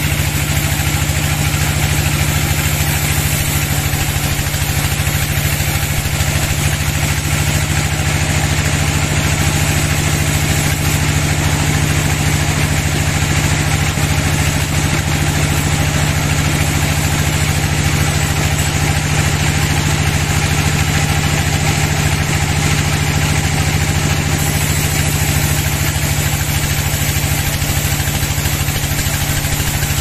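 Sawmill band saw running steadily with its blade ripping lengthwise through a log: a loud, even low drone from the mill's drive under a constant hissing cutting noise.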